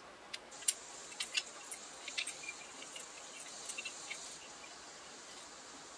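Metal spoon and fork tossing oil-dressed buckwheat noodles in a glass bowl: a run of light clicks and soft wet squishes, mostly in the first four seconds. A faint steady high hiss runs underneath.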